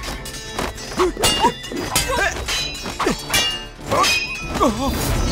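Sword-fight sound effects: metal blades clashing in a series of sharp clangs, several with a short metallic ring, among the shouts and grunts of fighting men, over background music.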